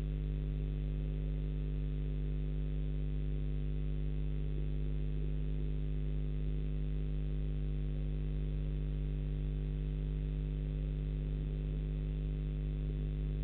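Steady electrical mains hum from the webcam's audio line: a low drone with several fixed tones above it that never changes. No sound from the falcon stands out above it.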